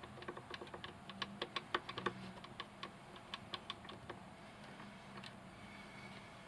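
A quick, irregular run of small clicks and taps, like small plastic parts being handled and snapped together. The clicks thin out after about four seconds.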